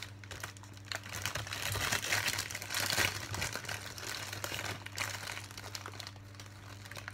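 Clear plastic marshmallow bag crinkling as a hand rummages in it for another marshmallow, with the crackling busiest in the middle.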